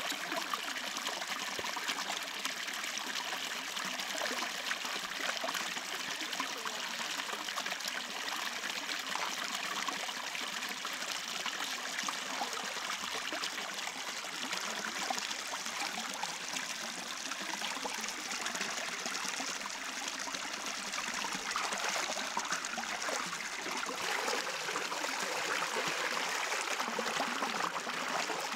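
Shallow stream water running and trickling steadily.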